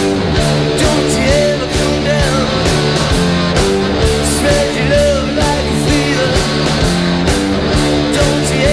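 Rock band playing live, loud: guitars over a steady drum beat, with no singing.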